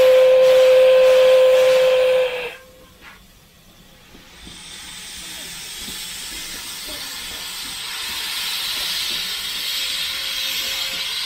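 Steam locomotive whistle sounding one long steady note that cuts off about two and a half seconds in. After a short lull comes a steady hiss of steam venting from the locomotive's cylinder drain cocks, growing louder, with a faint whistle note again near the end.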